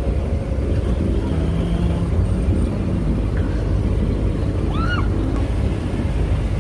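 Steady low rumble of a moving vehicle, with a short high chirp about five seconds in.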